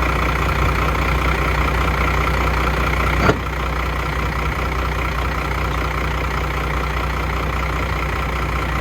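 Truck engine idling steadily, with one short sharp knock about three seconds in.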